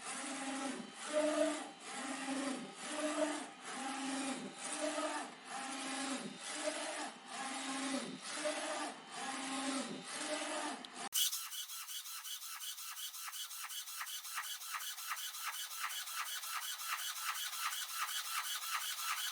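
Flatbed UV printer printing, its print carriage shuttling back and forth a little faster than once a second, each pass with a motor whine that rises and falls. About eleven seconds in the sound cuts abruptly to a fast, even ticking.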